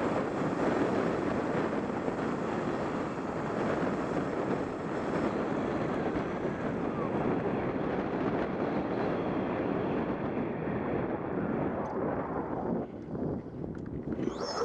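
Wind buffeting a helmet-mounted camera's microphone as an electric bike is ridden, a steady rushing noise that eases briefly near the end.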